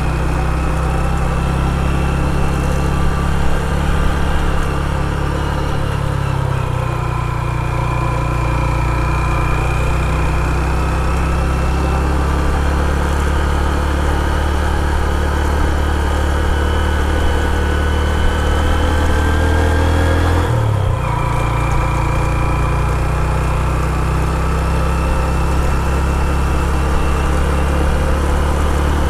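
Motorcycle engine running steadily as the bike rides along. The engine note dips and shifts briefly about two-thirds of the way through, then carries on steadily.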